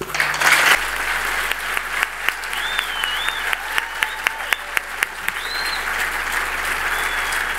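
Large audience applauding: dense, steady clapping with sharper individual claps standing out.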